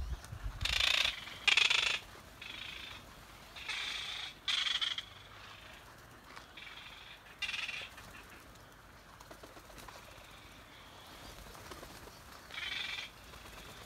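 Seabirds giving short calls, several in quick succession in the first few seconds, then a few more spaced out, one near the end. These are birds disturbed and defending their place as someone walks through them on the path.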